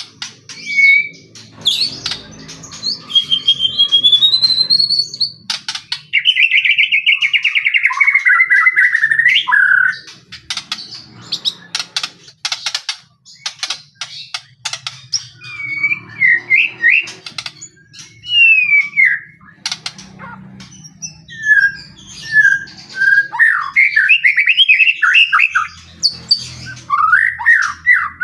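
White-rumped shama singing vigorously in a long, varied song. Clear whistles that rise and fall alternate with a buzzy, rasping descending phrase, runs of sharp clicks, and quick chattering notes.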